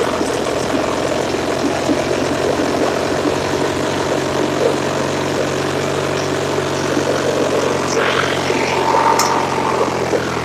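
Craftsman riding lawn tractor's 19.5 horsepower engine running steadily, settling into an even, unchanging note about four seconds in.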